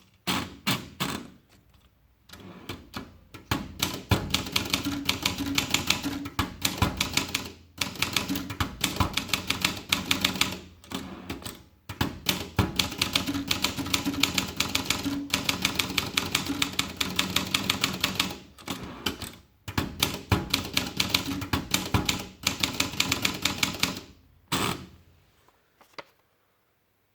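Olympia Traveller portable typewriter being typed on: rapid runs of key strikes clacking, broken by a few short pauses. The typing stops about 25 seconds in.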